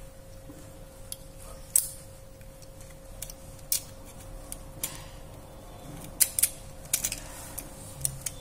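A dozen or so sharp, scattered clicks and taps as a Samsung J1 phone's circuit board is fitted into its plastic housing and pressed into place, over a faint steady hum.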